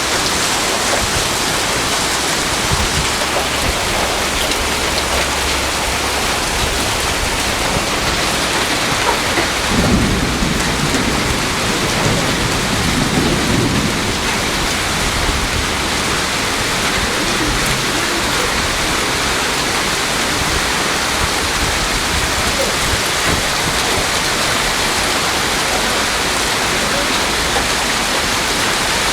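Heavy rain pouring steadily and drumming on surfaces. A low rumble comes about ten seconds in and again around thirteen seconds.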